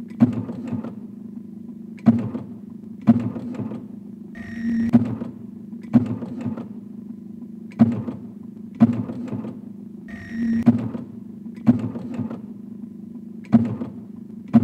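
Printing press machinery: a steady low hum with sharp mechanical knocks in a repeating long-short rhythm, looped into an experimental piece of music. About every six seconds a swelling rush with a faint high tone comes in.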